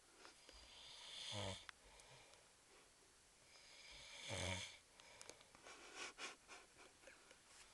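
A sleeping man snoring: two long rasping snores about three seconds apart, each swelling to a peak and then falling away. A few faint clicks come near the end.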